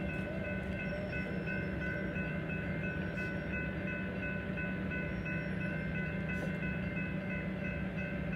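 Railroad crossing warning bell ringing rapidly and steadily while the crossing gates come down, over a steady low hum.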